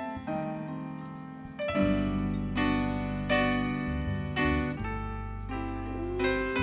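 Live band music in a rocksteady/reggae style: keyboard chords and notes, with the bass and full band coming in about two seconds in.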